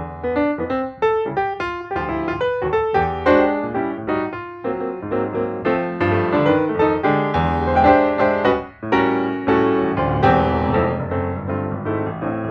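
Background piano music: a quick run of single notes and chords played without pause.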